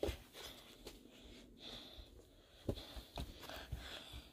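Faint, soft footsteps on a hard floor: a few isolated thumps, the clearest about two and a half seconds in.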